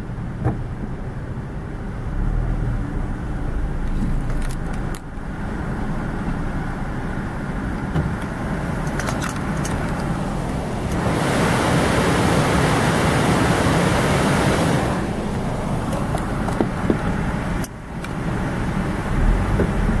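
A car driving slowly, its engine and tyre noise heard from inside the cabin as a steady low rumble. A louder rushing hiss comes in about eleven seconds in and lasts about four seconds, with a few faint rattles and clicks earlier.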